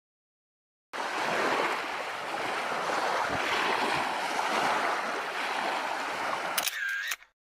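Sea surf washing on the shore of the Sea of Azov, a steady rushing noise that starts abruptly about a second in. Near the end a few clicks and a brief curving tone come before the sound cuts off suddenly.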